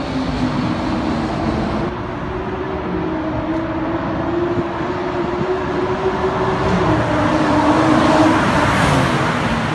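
BMW 640i's turbocharged straight-six running through a catless downpipe and valvetronic cat-back exhaust under steady acceleration, its note rising slowly, then falling away about seven seconds in as the overall noise swells.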